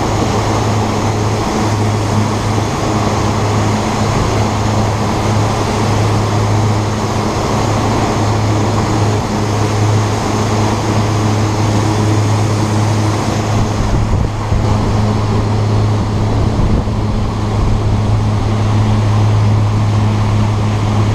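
Fishing boat's engine running steadily under way, a low constant hum under the rush of the wake and wind. The higher hiss drops away about two-thirds of the way through.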